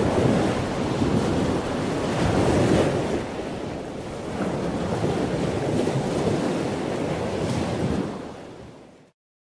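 Ocean waves washing on a shore in slow swells, fading out near the end.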